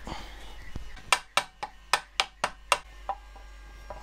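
Shaft coupling being knocked down onto the shredder's input shaft: about seven quick, sharp knocks, roughly four a second, then one fainter knock.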